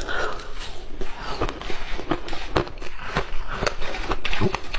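Close-miked chewing and crunching of frozen fruit and soft shaved ice: an irregular run of crisp crunches, several a second. Near the end a spoon scoops into the shaved ice.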